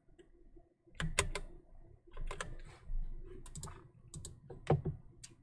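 Computer keyboard keys being typed in short, irregular bursts of clicks, a few keystrokes louder than the rest.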